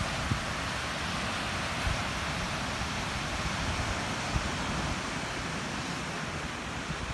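Ocean surf breaking on a sandy beach, a steady rushing wash, with wind buffeting the microphone in irregular low gusts.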